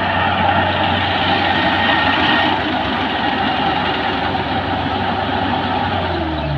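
Kubota PRO588i-G mini combine harvester running steadily, its engine holding a constant low hum under a dense mechanical clatter.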